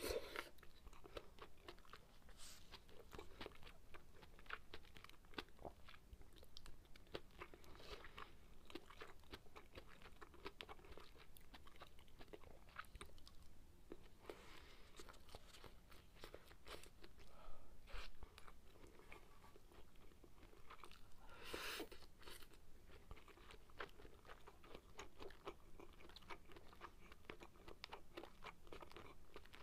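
Close-miked chewing and wet mouth sounds of a person eating sukiyaki and rice: quiet, with many small clicks and smacks and a louder mouthful about two-thirds of the way through.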